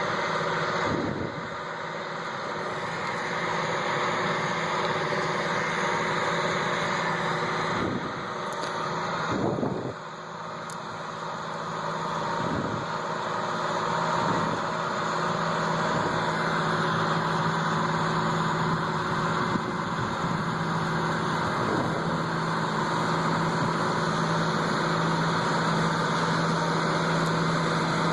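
Heavy harvest machinery running steadily: a continuous engine drone with a steady low hum, dipping briefly a few times in the first ten seconds.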